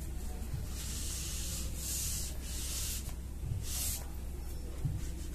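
A whiteboard eraser being wiped across a whiteboard in several strokes, each a brushing hiss.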